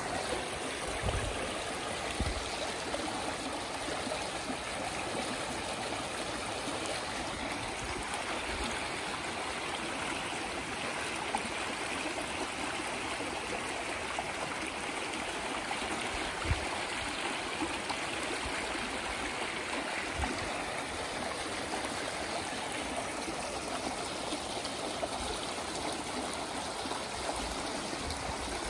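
Small shallow stream running over stones, a steady even babble of flowing water.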